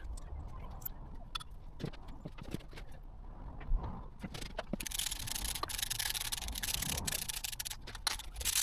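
Hand-tool work on an engine: scattered light clicks and knocks, then, about five seconds in, a steady rubbing scrape lasting a few seconds.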